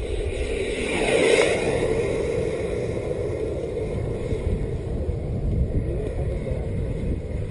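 KingTech K60G model jet turbine flying past, loudest about a second in with its whine dropping in pitch as it goes by, then a fainter steady drone as it draws away. Wind rumbles on the microphone underneath.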